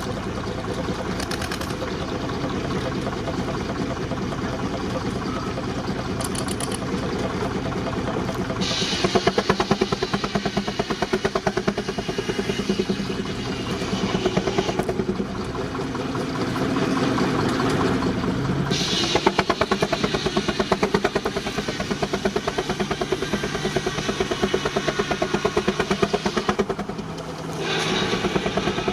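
19-65 Uniflow Baker steam traction engine running under load, driving a sawmill, with a fast, even exhaust beat. The sound grows louder and hissier for about ten seconds from roughly a third of the way in, and again near the end.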